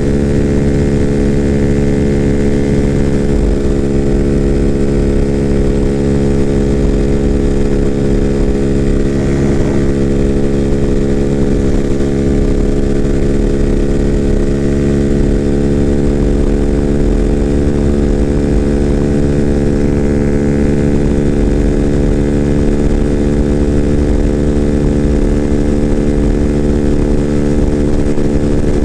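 A 2024 Freedom Fighter 200 EFI motorcycle's engine, with its exhaust baffle removed, running hard at a steady high speed in sixth gear, its pitch holding constant, under wind buffeting the microphone.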